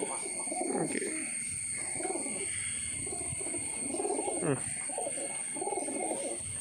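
Tournament flying pigeons cooing, several birds overlapping in a repeated series of low, rising-and-falling coos about once a second.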